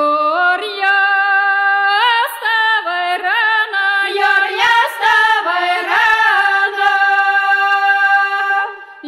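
Women singing a Belarusian rye-reaping harvest folksong, unaccompanied, in a loud, full-voiced style with upward scoops into notes. A long note is held near the end.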